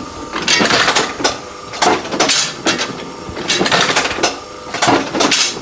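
30- to 40-year-old die cutting machine cycling, its mechanism clattering and clanking metal on metal in repeated bursts about a second apart. Its brake timing has just been adjusted so that it stops with the jaws fully open.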